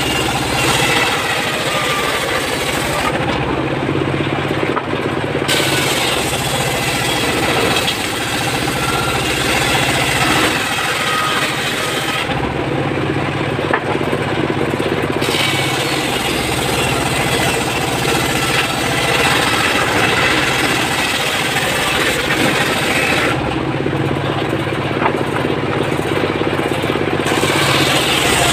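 Stationary engine running steadily, driving a homemade circular saw bench; the blade cutting through teak logs adds a high, hissing rasp that drops out three times for a few seconds while the blade spins free.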